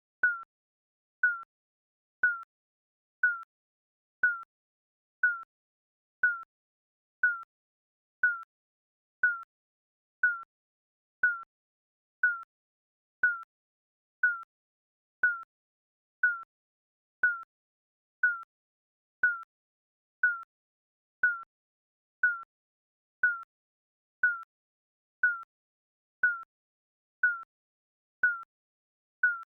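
Digital countdown timer beeping: one short, high electronic beep each second, each fading quickly, marking the seconds as the timer counts down.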